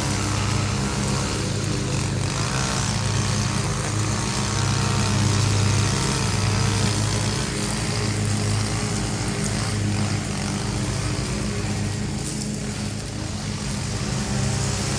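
Gas string trimmer (weed eater) engine running under load while cutting, its pitch wavering up and down.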